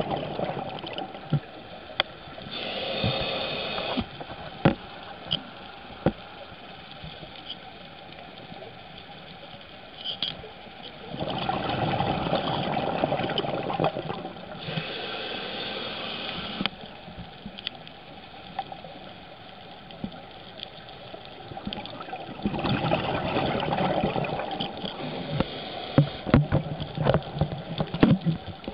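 Scuba diver breathing through a regulator underwater, heard through the camera housing: three long breaths, each a rush of hissing and bubbling, about ten seconds apart. Scattered sharp clicks sound in between, most of them near the end.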